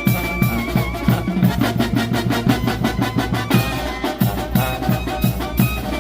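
Banda music: a Mexican brass band playing, with horns over drums keeping a steady beat and a quick run of drum strokes a couple of seconds in.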